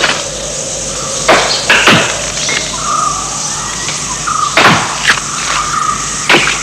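Forest ambience: a steady high insect hiss with short bird chirps, broken by five sharp knocks at uneven intervals.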